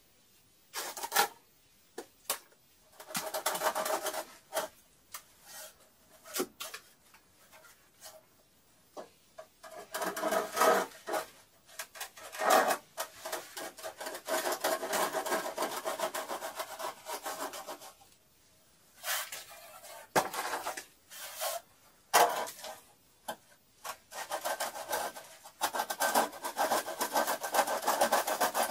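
Steel trowel working cement plaster mortar onto a brick wall: stretches of rough scraping broken by many short, sharp knocks and slaps.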